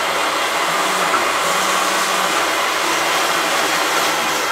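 Monsieur Cuisine Connect cooking food processor blending sweet potato purée at speed 7: the motor and blade run loud and steady.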